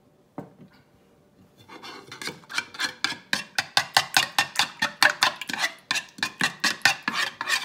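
Metal spoon scraping and clinking against a ceramic bowl while turning a chicken tender through a runny egg mixture: one clink about half a second in, then quick rhythmic strokes, about five a second, from about two seconds in.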